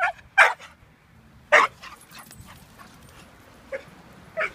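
A dog barking in short single barks: two near the start, one about a second and a half in, and two fainter ones near the end.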